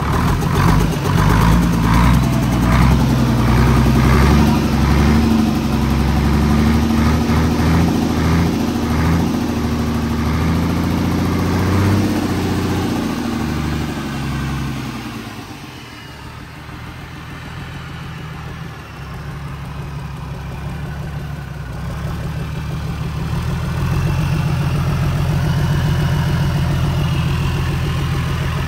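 Isuzu 6WF1 six-cylinder turbodiesel truck engine running on a test stand, revved in quick repeated surges at the injection pump for the first dozen seconds, then dropping back to idle about 15 seconds in and picking up to a steady faster idle near the end. It runs smoothly, which the seller takes as a sign of a healthy engine with no smoke and no blow-by.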